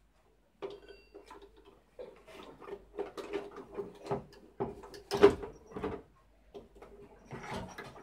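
Fishing rods and spinning reels being handled in a wooden rod rack: an irregular run of clicks, knocks and rattles as rods are pulled out and moved, the loudest knock about five seconds in.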